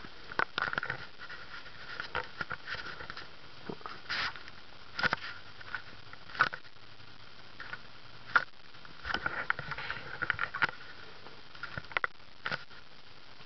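Handling noise: irregular rustles and clicks, a few of them sharper and louder, over a low steady background.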